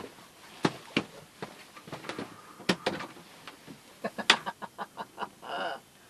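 Hard plastic fender step knocking and clattering against the cockpit fittings as it is handled and stowed: a string of sharp knocks, then a quick run of small clicks about four seconds in.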